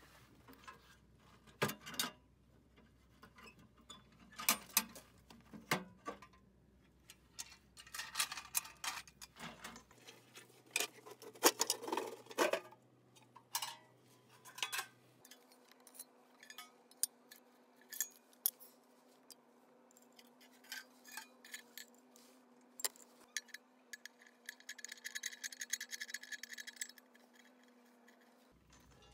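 Irregular clanks, clicks and knocks of steel stove parts being handled: the ammo can stove's box and square pipe sections taken out and fitted together. Near the end comes a scraping rattle lasting a couple of seconds as the metal pieces are slid into place.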